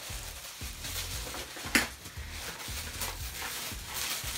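Paper wrapping being unwrapped by hand: irregular crinkling and rustling, with one sharp crackle a little under two seconds in.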